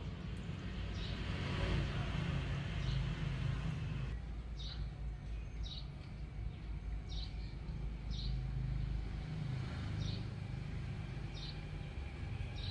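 Steady low motor hum, with a small bird giving short high chirps about once a second.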